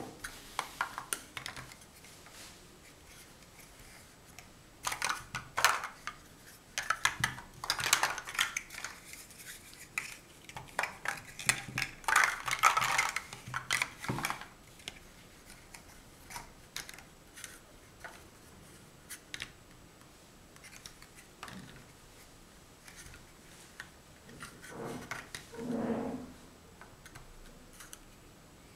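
Large hollow plastic Mega Bloks First Builders blocks clattering and clicking as they are picked from a pile and pressed onto the build. The clatter comes in bursts of sharp knocks, with a quieter stretch in the middle.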